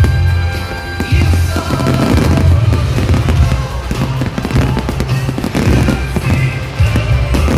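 Fireworks going off repeatedly, with sharp crackles over a continuous low rumble, mixed with music.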